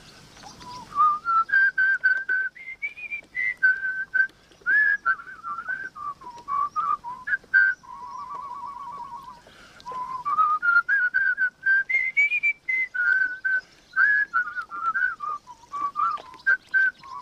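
A person whistling a tune, stepping up and down through notes, with a wavering held low note about eight seconds in and again near the end.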